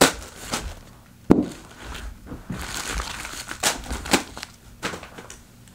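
Plastic mailers and padded envelopes tossed onto a rug one after another. Each lands with a sudden slap and a crinkle of plastic, several times, with light rustling of packaging in between.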